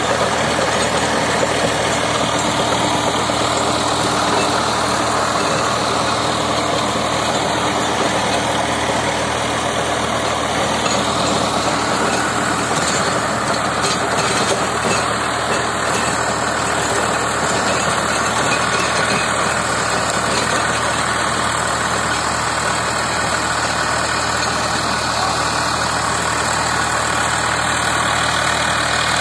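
Swaraj 744 FE tractor's three-cylinder diesel engine running steadily under heavy load, driving a two-metre Shaktimaan rotavator whose blades churn the dry soil with the lever fully lowered.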